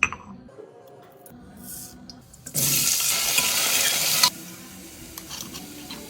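Food sizzling in a hot pan while being stirred: a loud burst of sizzling starts about two and a half seconds in, lasts under two seconds and drops off suddenly, then a lower steady sizzle with light clicks.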